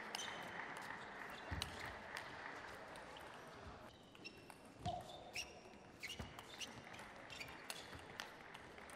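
Table tennis rally: a celluloid ball clicking sharply off the bats and the table, each strike with a short high ring. A steady hiss of hall noise lies under the first few seconds and drops away about four seconds in, and a few low thumps come between the clicks.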